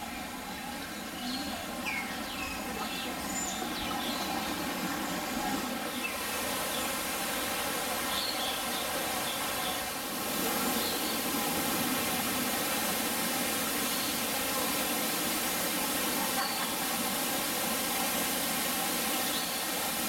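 A waterfall's steady rushing hiss, growing louder about halfway through, with a few short bird chirps over it.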